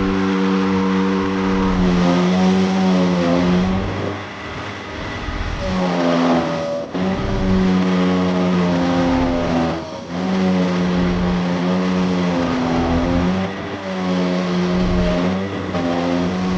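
A motor running with a steady hum, its pitch sagging and climbing back several times.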